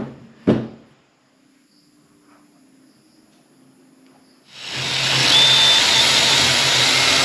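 Two sharp knocks half a second apart, then about four and a half seconds in an electric wood router switches on, spins up and runs steadily with a loud even whir and a steady hum.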